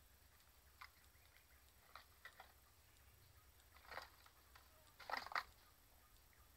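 Near silence with a few faint scattered ticks, and a brief louder rustle of small clicks about five seconds in.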